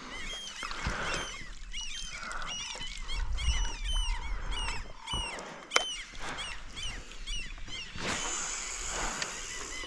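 A flock of birds calling: many short, high, repeated calls overlapping throughout. A single sharp knock sounds about six seconds in, and a hiss comes in near the end.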